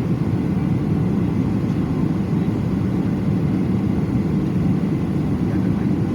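Steady low rumble of a passenger aircraft's engines and airflow during its landing, even in level throughout.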